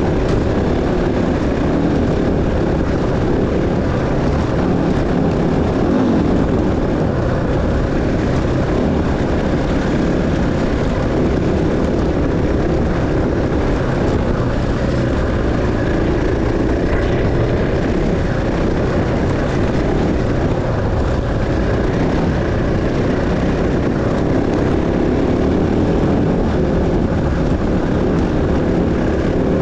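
Dirt bike engine running steadily, with a dense rushing noise mixed in.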